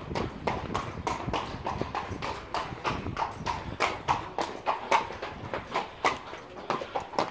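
Horses' hooves clip-clopping on hard ground, several strikes a second in an uneven rhythm.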